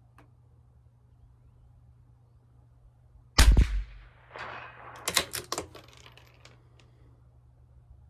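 A CZ 457 LRP bolt-action .22 LR rifle fires a single loud shot a little over three seconds in. About a second later comes a quick string of sharp metallic clicks as the bolt is worked to eject the spent case and chamber the next round.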